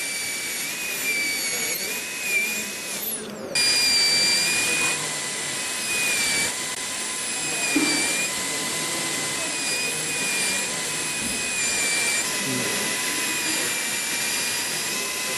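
High-speed air-turbine dental handpiece running with a high whine over a hiss of air, its pitch dipping and wavering as the bur cuts into a model tooth during crown preparation. About three seconds in the whine glides down and drops away briefly, then comes back louder.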